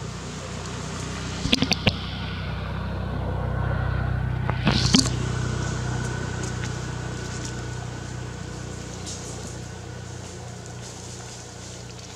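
A motor vehicle passing by: a low engine drone that swells to a peak about four seconds in and then slowly fades. A few sharp clicks come just before the peak, and a brief sharp noise comes at it.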